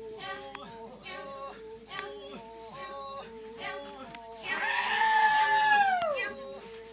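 Naga folk dancers singing a group chant in short held notes. About four and a half seconds in, a much louder long call starts, held on one pitch and then falling away at its end.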